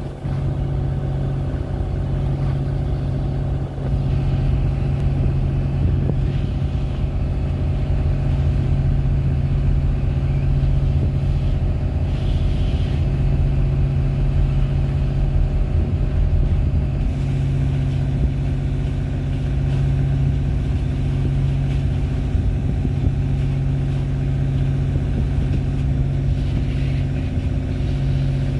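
Boat engine running steadily at constant speed, a low drone over a rough rumble.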